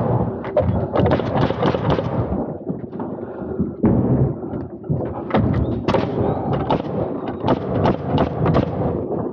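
Pneumatic framing nailer firing nails into 2x4 lumber: a run of sharp shots at irregular intervals, sometimes several close together, mixed with knocks of wood being handled.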